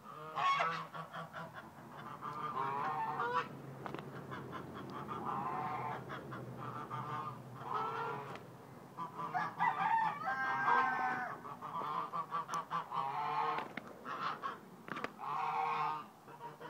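Small rooster giving a run of repeated honking squawks, the agitated calls of a rooster attacking a person's foot.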